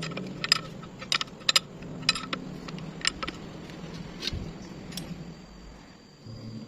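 A series of sharp clicks and taps, about seven over six seconds at uneven spacing, over a low steady hum.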